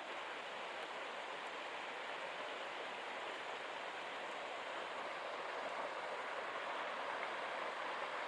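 Steady rushing of a mountain stream, an even hiss that grows slightly louder over the stretch.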